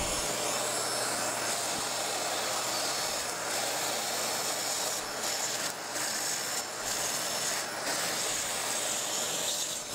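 Vacuum cleaner running steadily as its nozzle sucks up metal shavings left from drilling holes in a steel PC case.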